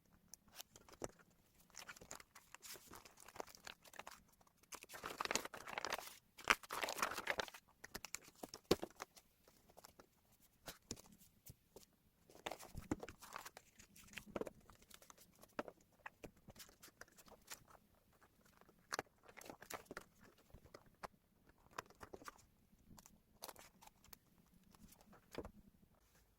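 Close-up magazine paper being handled: crisp crinkling, rustling and crackling in irregular bursts with small sharp clicks, loudest in a dense stretch about five to seven seconds in.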